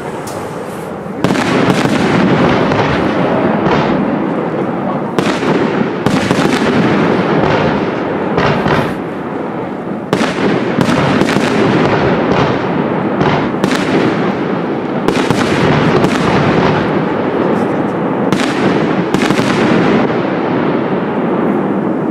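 Professional aerial fireworks display: shells bursting in quick succession, many sharp bangs over a dense continuous crackle, growing loud about a second in, with a couple of brief lulls.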